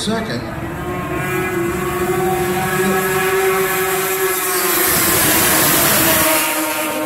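Racing snowmobiles' two-stroke engines running at high revs as the sleds pass on the ice oval, growing louder to a peak about five to six seconds in, then dropping in pitch as they go by.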